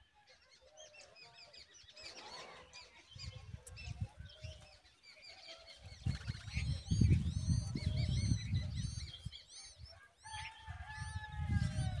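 Common babbler nestlings begging with rapid, high-pitched chirps as the parent feeds them, with a longer steady call held for a couple of seconds near the end. A low rumbling noise comes and goes underneath, loudest midway and again near the end.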